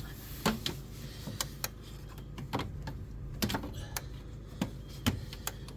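Irregular light clicks and taps of hand tools and a hose clamp being handled while a new upper radiator hose is worked onto the thermostat housing, over a low steady hum.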